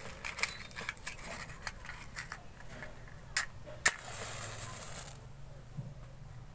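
Scattered small handling clicks, then two sharp clicks and about a second of hiss as a flame is struck to light a small candle.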